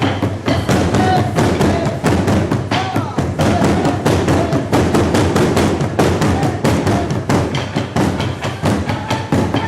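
Burundi drummers beating large drums with sticks in a fast, dense rhythm, several strokes a second, with voices calling out over the drumming.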